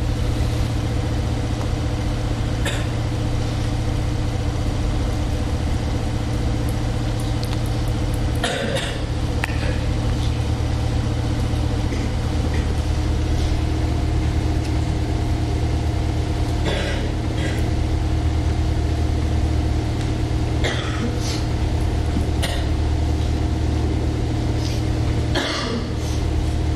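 A steady low mechanical hum with several fixed tones above it, continuous and unchanging, with a few brief sharp sounds scattered through.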